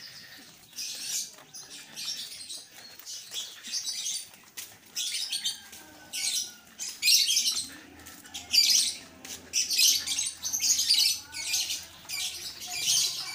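Footsteps scuffing on a concrete path at a steady walking pace, about one and a half steps a second.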